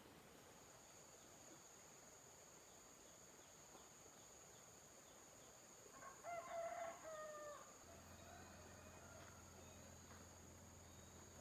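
A rooster crows once, about six seconds in, over a faint steady high-pitched tone.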